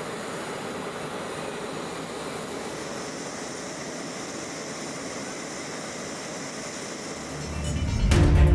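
Steady, even rushing noise of a jet engine running, with no change in pitch. About a second before the end, music with deep drum hits swells in and becomes the loudest sound.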